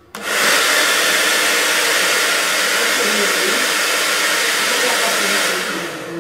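Hand-held hair dryer switched on abruptly and blowing steadily with a loud rushing hiss, then switched off near the end and winding down.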